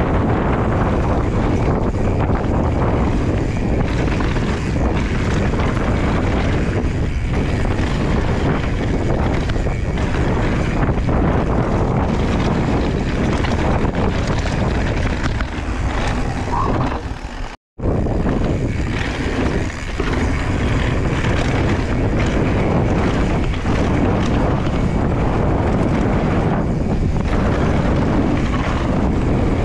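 Mountain bike running down a dirt trail: steady wind rush on the microphone mixed with tyre and rolling noise. The sound cuts out completely for a moment just over halfway through.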